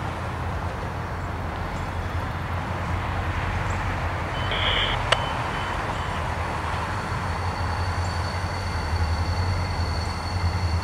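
CSX SD40-3 diesel-electric locomotive running light, its EMD 16-cylinder two-stroke diesel giving a steady low rumble that grows louder over the last few seconds as it approaches.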